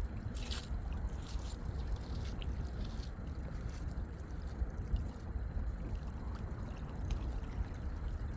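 Lakeside ambience: a steady low wind rumble with small waves lapping and short light splashes every second or so.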